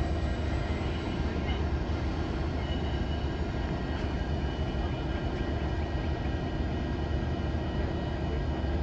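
Approaching diesel freight locomotives of a Union Pacific train, running with a steady low rumble and hum.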